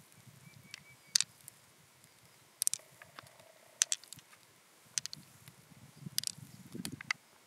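Blue pearls clicking against one another in a hand and on an open mussel shell: about eight sharp, separate clicks at irregular intervals, with a soft low rustle of handling near the end.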